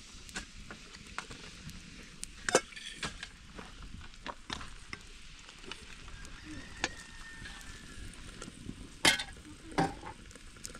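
A small wood fire crackling, with many faint ticks and a few louder sharp pops or clicks: one about two and a half seconds in and two close together near the end.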